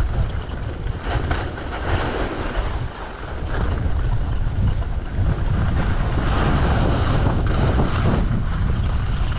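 Wind rushing over the microphone of a skier moving downhill, with the hiss and scrape of skis sliding over hard-packed, chopped-up snow.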